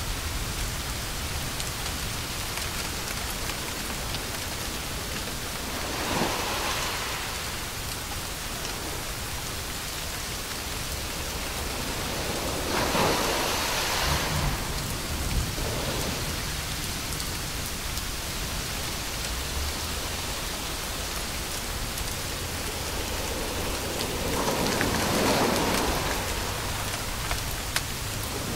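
Steady rain-like hiss of a white-noise track for lulling babies to sleep, swelling into louder whooshes three times.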